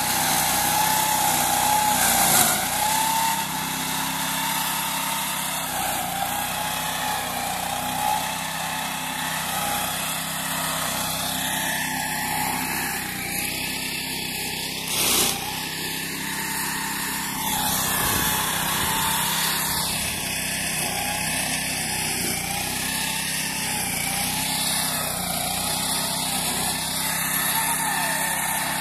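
Small engine of a homemade walk-behind meadow mower running steadily under load while its chain flails cut and shred grass, with a brief knock about halfway through.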